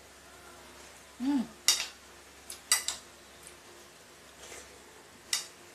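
A spoon clinking and scraping against a bowl of rice and sinigang soup several times while she eats, with a short hummed "hmm" about a second in.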